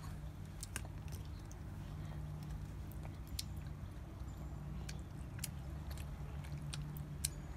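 Small children chewing and biting thin chocolate egg shells, heard as scattered short sharp clicks over a steady low hum.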